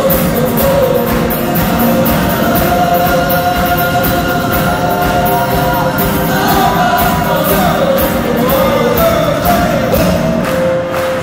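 A live rock band with electric and acoustic guitars and a large gospel choir performing a song together, the choir singing long held lines over the band.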